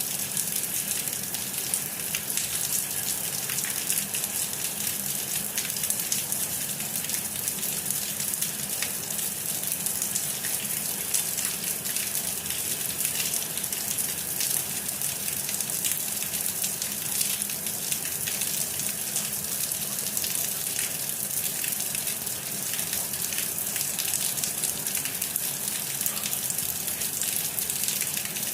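Steady rain falling, a dense even hiss made of countless small drop impacts.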